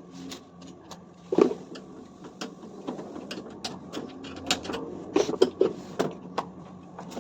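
Clatter of tools and parts during washing machine disassembly: a string of irregular clicks and knocks, with a loud knock about a second and a half in and a quick cluster of knocks a little past the middle, over a steady low hum.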